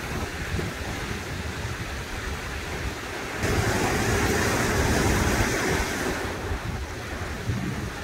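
Swollen, muddy Swat River in flood, a steady rush of fast water with wind buffeting the microphone. The rush is louder for a few seconds in the middle.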